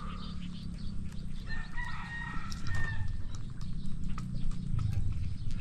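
A rooster crows once, a held call of about a second and a half starting about a second and a half in. Scattered light clicks and a steady low rumble run underneath.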